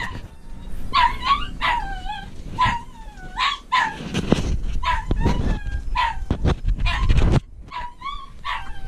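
Puppy whining and yelping in a run of about a dozen short, high-pitched cries that bend up and down in pitch, with rubbing and bumping from the camera being handled.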